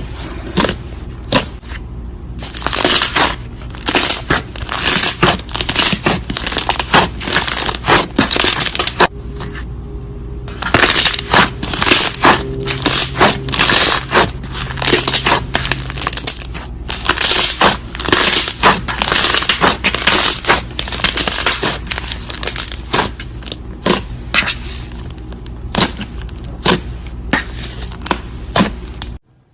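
Slime being squeezed and pressed by hand, giving dense clusters of sharp crackling pops that come in waves with a short lull partway through. It cuts off abruptly near the end.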